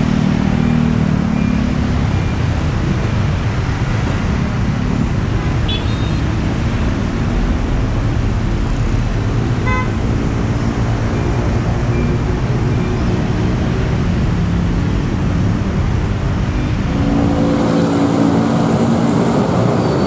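Dense road traffic of motorcycles and cars passing close by, engines running steadily, with a short horn toot about halfway through.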